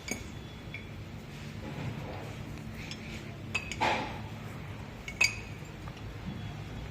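A few sharp metallic clinks of hand tools against the compressor's metal parts while the clutch coil is being pried out, the loudest about five seconds in, over a low steady hum.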